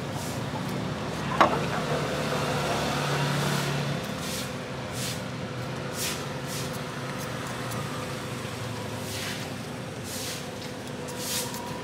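A metal spoon beating surf clams into raw egg in a ceramic bowl: repeated short scrapes and clinks against the bowl, over a steady low rumble. One sharp click sounds about a second and a half in.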